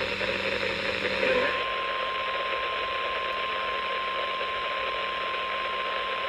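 Weather radio receiver hissing with static, then, about a second and a half in, a single steady high tone starts and holds: the NOAA Weather Radio 1050 Hz warning alarm tone that signals a warning-level emergency alert.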